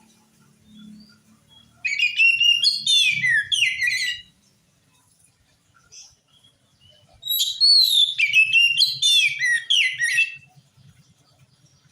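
Oriental magpie-robin (kacer) singing in full voice: two loud bursts of quick, varied whistled phrases with sliding notes, each lasting about two to three seconds, the second starting about seven seconds in.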